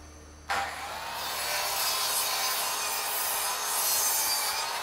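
DeWalt sliding mitre saw starting up about half a second in and its blade cutting through a softwood rail, a steady motor whine over the cutting noise.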